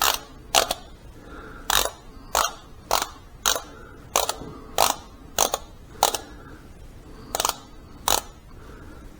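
Click-type torque wrench clicking: about a dozen sharp metallic clicks at uneven spacing, roughly half a second to a second apart, as it is worked on transmission case bolts.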